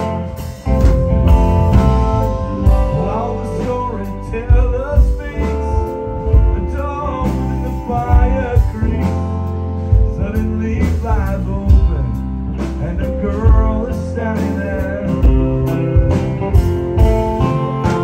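Live rock band playing: electric guitar lead lines with bent, wavering notes over bass guitar and drums.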